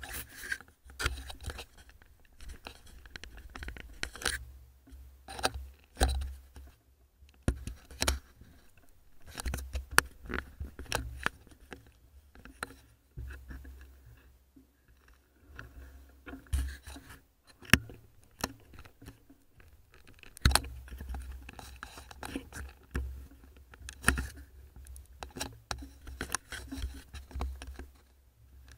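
Mountain bike ridden over a rough forest trail, heard through the action camera's own microphone: a dense run of irregular rattling knocks and scrapes from the bike jolting over bumps, with low rumbling underneath and a few brief lulls.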